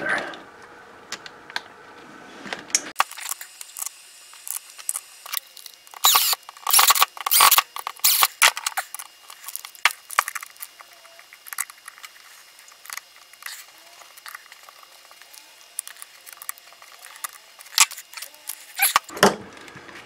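Scattered clicks, taps and light rattles of hard plastic parts as a ShurFlo RV water pump's new pressure switch is handled and fitted into the pump housing, with a thick cluster of them about six to eight seconds in.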